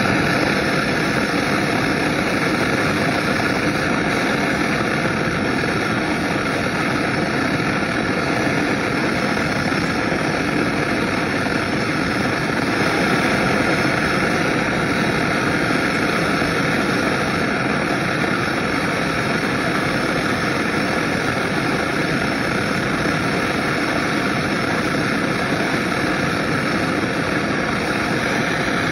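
Handheld gas torch burning with a steady hiss, its flame played on a metal key blade held in locking pliers.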